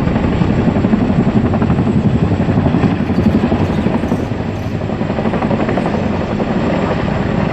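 Boeing CH-47 Chinook tandem-rotor helicopter circling overhead: a loud, steady, rapid beating of its rotor blades over the drone of its engines, easing slightly about halfway through.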